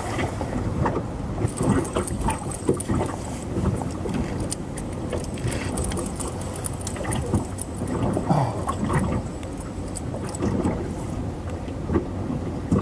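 Water slapping and lapping against the hull of a small moored fishing boat, with scattered light clicks and knocks from handling the rod and reel.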